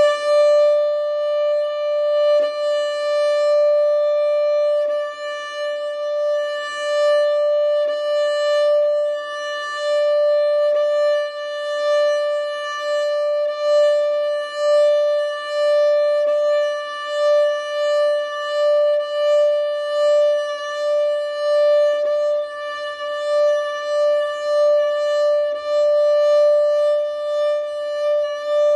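Violin sounding one sustained high note, bowed in long separate strokes with small dips in loudness at each bow change. This is a sounding-point exercise: the bow moves between a contact point close to the bridge and one further from it.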